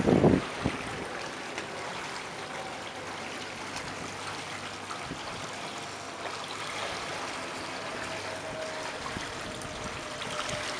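Steady trickling and splashing of water around a small motorboat's hull as it moves slowly, with a brief gust of wind on the microphone at the start.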